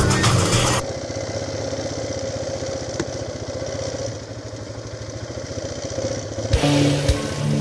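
Background music for about the first second, then an ATV engine running at low speed with a fast, even firing beat as the quad rolls along. Music comes back in near the end.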